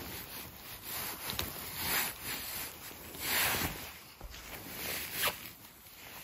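Rustling of grass, moss and clothing as a gloved hand brushes through the forest-floor grass, in several soft rustles about a second apart.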